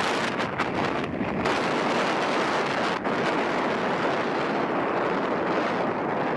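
Steady rushing wind noise on the microphone of a camera held by a passenger on a moving dbX electric motorcycle; no motor note stands out over it.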